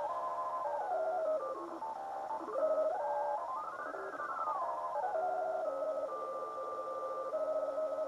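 ATS25X1 receiver's loudspeaker in upper-sideband mode on longwave, around 146 kHz, giving beat tones that jump in steps and glide in pitch as the tuning knob is turned. Near the middle the tones sweep up and back down in an arch, and near the end they settle into steady whines. The owner calls this ever-present tone on longwave a heavy interference he cannot trace.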